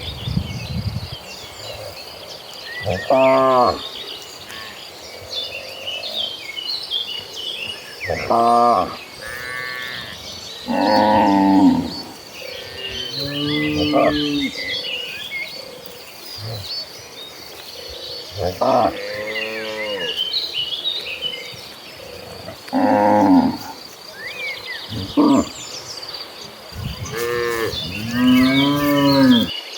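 A herd of cattle mooing, about nine separate calls from different cows spread a few seconds apart, some short and some long with an arching pitch.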